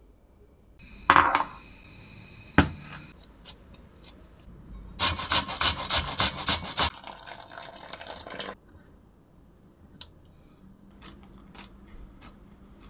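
Stainless-steel box grater rasping food into a glass bowl in quick strokes, about three a second, over a few seconds in the middle. Before it come a ringing clink and a sharp knock, and after it a few faint clicks.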